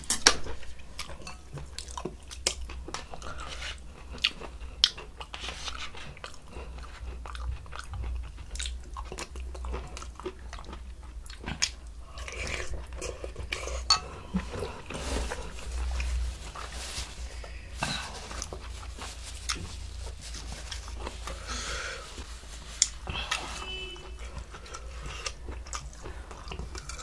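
Close-up eating sounds of two people at a meal of spicy beef soup and side dishes: chewing and crunching, with many scattered sharp clicks through the whole stretch.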